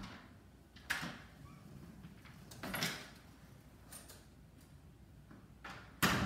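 Interior door latch and door handled: a few soft clicks and knocks, with the loudest, a door shutting, near the end.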